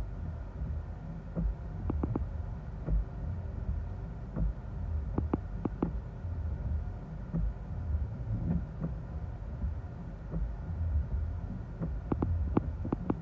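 Gusty storm wind buffeting a car, heard from inside the cabin as a low, uneven rumble that swells and eases, with scattered light taps on the glass.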